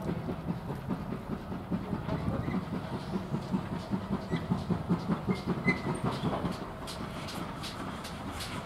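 GWR 5101-class 2-6-2 tank locomotive No. 4144 working under steam, its exhaust beating out an even, rapid chuff as it hauls its coaches. After about six and a half seconds the chuffing weakens and sharp clicks of wheels over the rail joints come through.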